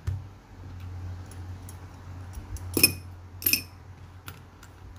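Two short, sharp clinks of a small hard object, about two-thirds of a second apart, with a few faint ticks, over a steady low hum.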